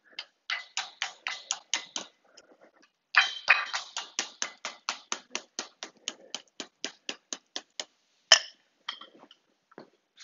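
Small hammer tapping a dense wire sculpture into shape: quick light taps, about five a second, in a short run and then a longer run starting about three seconds in, with a few scattered taps near the end.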